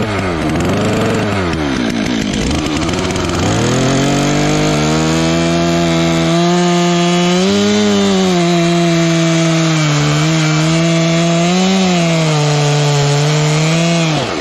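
Stihl MS 362 two-stroke chainsaw revved up and down a few times, then held at steady high revs while cutting wood. Its pitch dips briefly twice as the chain takes load, and the engine drops back suddenly near the end.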